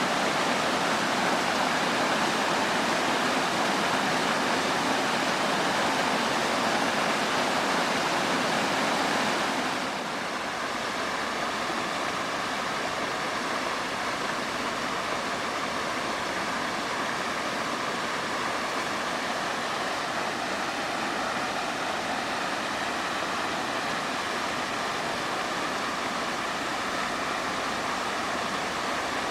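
Waterfall rushing steadily, an even roar of falling water. About a third of the way in it drops slightly in level and turns thinner, then holds steady again.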